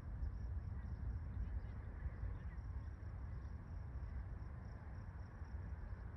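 Outdoor ambience: an uneven low rumble with faint, high, scattered chirps over it.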